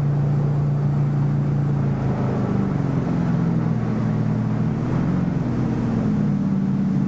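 Motorboat engine running under way, with the rush of water and wind over it; the engine note shifts about two seconds in and settles a little higher near the end.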